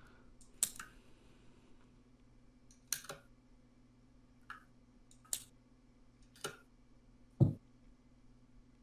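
About six sharp, scattered clicks over a faint, steady low hum. The last, near the end, is the loudest and heavier, with a low thud in it.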